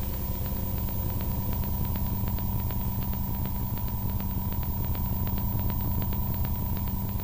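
Dark ambient drone from a horror animation's soundtrack: a low rumble and hum under a steady high tone, with a rapid, uneven ticking of faint clicks.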